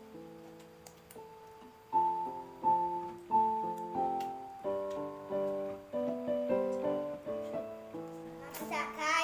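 Background piano music, a melody of separate held notes that gets louder about two seconds in.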